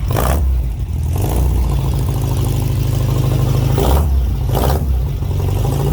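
Air-cooled VW flat-four engine of a VW trike running steadily, freshly tuned with a rebuilt carburetor, new plugs and wires, and reset timing. There are brief rushes of noise near the start and again about four seconds in.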